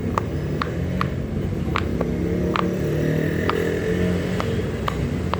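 Silicone pop-it fidget toy having its bubbles pressed one after another: short sharp pops, about two or three a second, over a steady low rumble.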